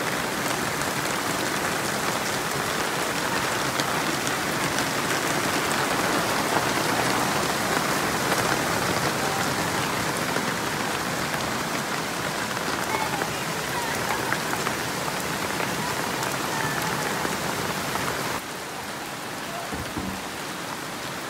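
Heavy rain pouring down in a sudden summer shower, a dense steady hiss of falling water, a little softer near the end.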